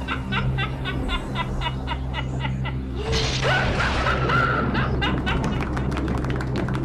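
Intro music over a steady low drone, with a rhythmic, laugh-like voice for the first few seconds, a swell about three seconds in, then a fast ticking beat.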